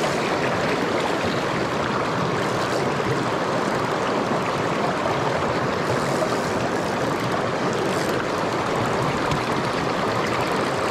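Small freestone mountain creek flowing over rocks: a steady, unbroken rush of running water.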